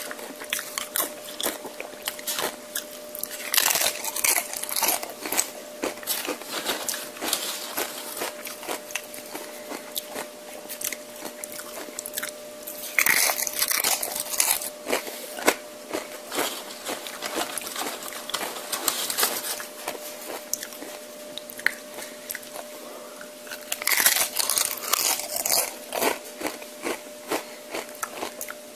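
Close-miked eating: chewing and mouth clicks, with three loud crunchy bites into tortilla chips about ten seconds apart, each followed by a couple of seconds of crunching.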